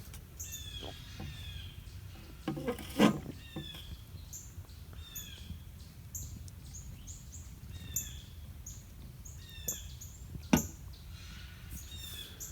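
Wild birds chirping repeatedly in short, downward-sliding notes over a steady low outdoor rumble. A few sharp clicks or knocks cut through, about three seconds in and, loudest, near ten and a half seconds.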